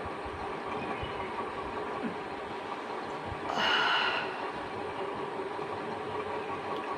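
Steady background drone throughout. About three and a half seconds in there is one short, breathy rush of air: a person's closed-mouth yawn breathed out through the nose.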